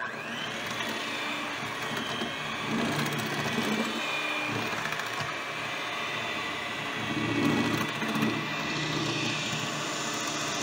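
Handheld electric mixer running steadily, its two beaters turning through dry flour in a glass bowl, a loud motor whine over a rough whirring hum.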